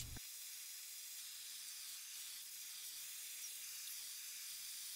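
Oxy-fuel torch flame hissing steadily and faintly as it heats a steel knife guard for bending.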